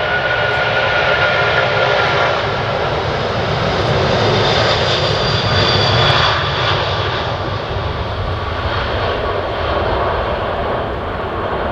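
Large jet airliner's engines running as it passes, a steady rushing noise with a faint whine, loudest about six seconds in and then easing.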